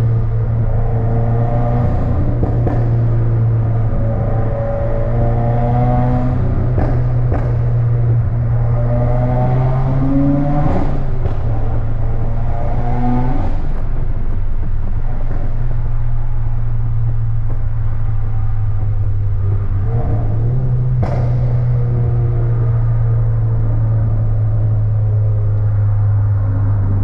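2015 Subaru WRX's turbocharged flat-four, on a stage 2 tune with a custom exhaust, running steadily under way with a deep exhaust drone. The revs shift a couple of times, and short sharp exhaust pops crack out here and there.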